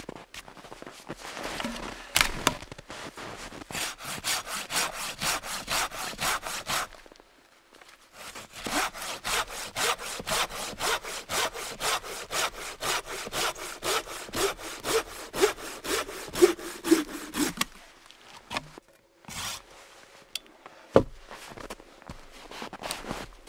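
Folding hand saw cutting through a small log in quick, even strokes, about three a second. It runs in two long bouts with a short pause between. The sawing then stops, and a single sharp knock follows near the end.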